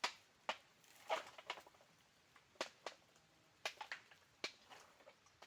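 Açaí berries being stripped by hand from the bunch, heard as irregular sharp clicks and short rattles, some in quick clusters.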